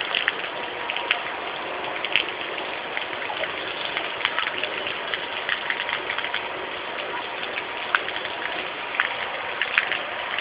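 Heavy rain pouring down: a steady hiss with many sharp drop splashes scattered through it.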